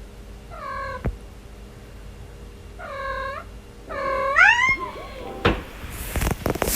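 Cat meowing three times: two short meows of the same shape, then a longer, louder one that rises and falls in pitch. After that comes a cluster of sharp knocks and rustling.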